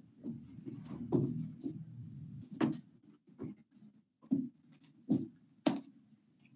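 A string of irregular knocks, taps and handling noises from a person moving and handling objects at a whiteboard, with sharper clicks a little before the middle and near the end.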